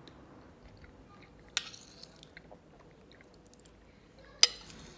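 A person chewing a mouthful of bolognese sauce and eating with a metal fork from a glass plate, with two sharp clinks of the fork: one about one and a half seconds in and a louder one near the end.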